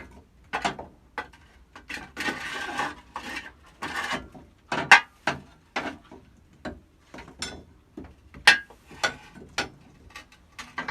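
Irregular clicks, clinks and knocks of metal kitchen or stove hardware being handled, with a short scraping rush about two seconds in.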